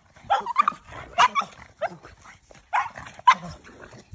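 Small dogs, a Boston terrier among them, barking and yipping in play as they leap at a swung broom: about five short, sharp barks spread unevenly across a few seconds.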